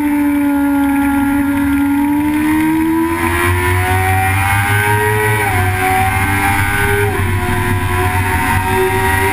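Engine of a vehicle lapping a race track under acceleration, its pitch climbing and then dropping sharply at two upshifts, about halfway through and again a second and a half later.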